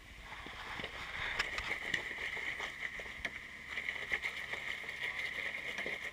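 Jeep Wrangler JK crawling up a rock ledge, its engine working under load while the tires crackle and grind over rock and gravel. The noise builds over the first second, holds steady with many sharp cracks, and cuts off suddenly near the end.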